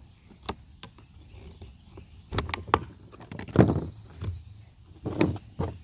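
Scattered sharp clicks and knocks of a Kärcher KB5 sweeper's hard plastic housing being pried and handled as it is taken apart, about seven in all, the loudest a little past the middle.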